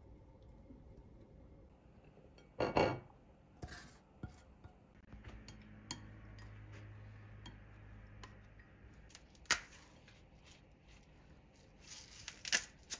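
Wooden chopsticks and a ceramic plate clinking and knocking as steak is plated: scattered light clicks with a few sharper clatters, the loudest about three seconds in and others near ten and twelve seconds.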